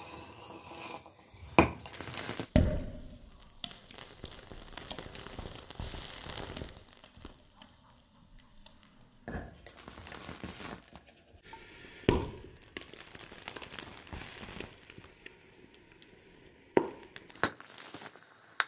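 Sodium metal reacting violently with water in a clay pot: continuous fizzing and crackling broken by several sharp bangs as the released hydrogen ignites and the sodium explodes, spitting burning fragments.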